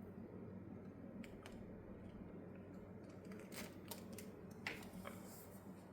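Faint room tone with a steady low hum and a few light scattered clicks and rustles, most of them in the second half.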